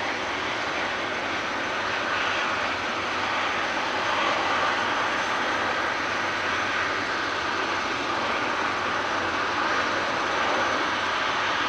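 BAE Hawk T1 jets of the Red Arrows taxiing, their Rolls-Royce Turbomeca Adour turbofans running at taxi power: a steady loud jet rush with a thin high whine over it, swelling slightly about four seconds in as the jets pass.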